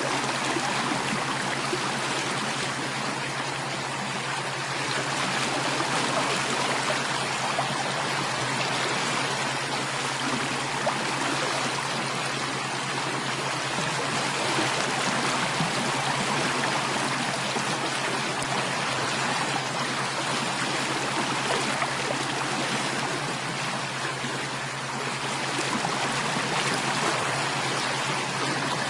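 Running water flowing steadily, an even rushing and trickling sound like a stream.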